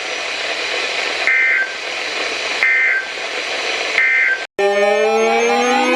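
Three short bursts of warbling two-tone data from a NOAA Weather Radio broadcast, about a second and a half apart, over steady radio hiss. These are the EAS SAME end-of-message bursts that close the warning. After a brief dropout about 4.5 s in, a chord of many tones starts, its pitches sliding upward and spreading apart.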